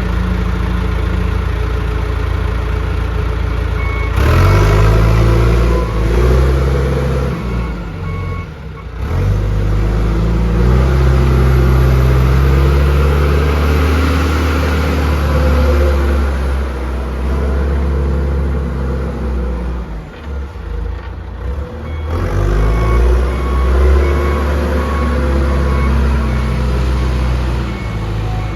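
John Deere 310SE backhoe's turbocharged four-cylinder diesel engine running and being revved up and down as the machine is worked, its pitch rising and falling repeatedly. The reverse alarm beeps at times, once a few seconds in, again about eight seconds in, and in a longer run near the end.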